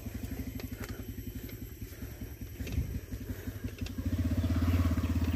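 Motorcycle engine running at low revs, a steady fast putter that grows louder about four seconds in.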